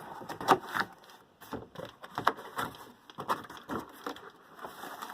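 A fan part being forced back into a cardboard box: irregular knocks, taps and scrapes, a few each second.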